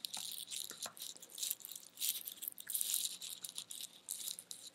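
Computer keyboard typing: rapid, irregular key clicks in quick runs.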